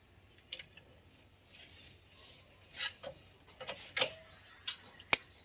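Scattered light clicks and taps, with a sharper click about five seconds in.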